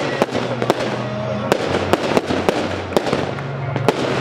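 Fireworks display: aerial shells bursting in a rapid, irregular run of sharp bangs, roughly two to three a second, over background music.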